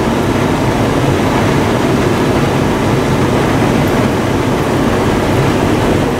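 Heavy downpour hitting a moving car, mixed with tyre and engine noise: a loud, steady rush.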